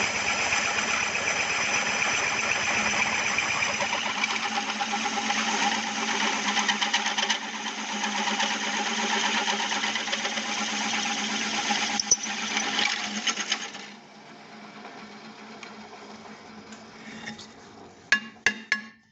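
Drill machine running and boring a 21 mm hole through a metal bracket strip: a steady motor and cutting noise. About fourteen seconds in it drops to a much quieter hum, and a few sharp metal clicks follow near the end.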